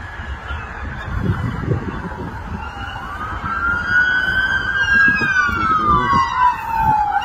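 Police car siren wailing, its pitch sweeping slowly up and down. It comes in about three seconds in and grows louder as the car approaches, over a low rumble of wind and traffic.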